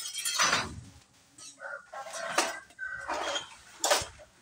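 Glass soda bottles rattling and clinking in plastic crates as the crates are moved with a hand truck, with two sharp knocks in the second half.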